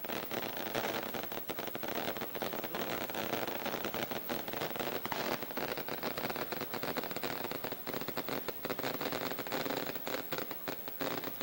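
Firecrackers set off from a fireworks-carrying balloon, crackling in a dense, irregular run of sharp pops.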